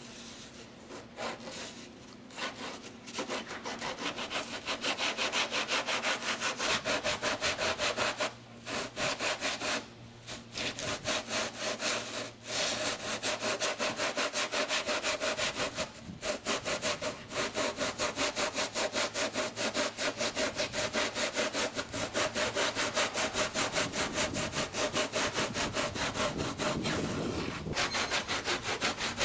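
A long serrated blade, worked by hand, saws through cured rigid polyurethane foam on a fiberglass engine cowl in rapid back-and-forth strokes, trimming the foam down to shape. The strokes stop briefly a few times.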